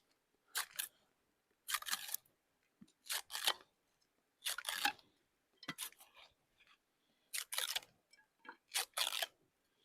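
A dry cedar shingle being split by hand into kindling strips: seven short crackling splits along the grain, each a quick double snap, coming about every second and a half.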